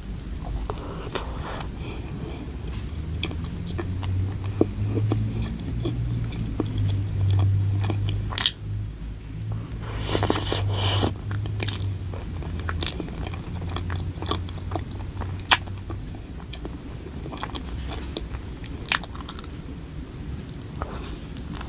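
A person biting and chewing food close to the microphone, with crunching and many small sharp mouth clicks in irregular bursts.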